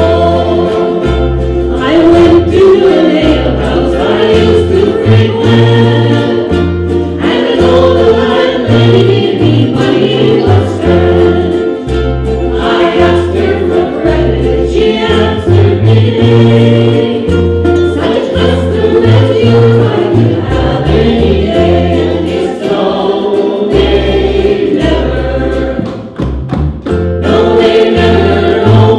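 Ukulele band singing a song in several-part harmony, with strummed ukuleles and a bass line stepping from note to note underneath. The loudness drops briefly near the end.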